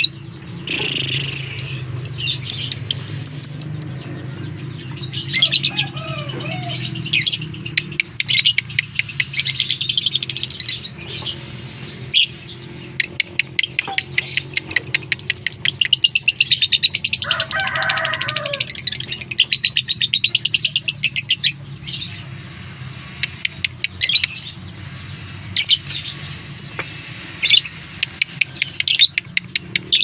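Fischer's lovebird chattering in long, rapid, high-pitched trills broken by sharp chirps. Later it gives mostly single sharp chirps a second or two apart.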